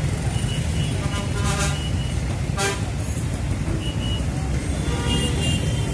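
Busy road traffic: a steady rumble of engines with short vehicle horn toots, a couple of them around the middle.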